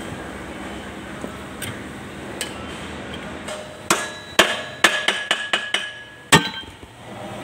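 A hammer tapping on steel parts of a tractor's final drive, most likely seating a ball bearing onto the gear shaft. About nine quick strikes, each with a metallic ring, come in a burst from about four seconds in. A single heavier blow ends the burst about two seconds later. A steady workshop hum runs underneath.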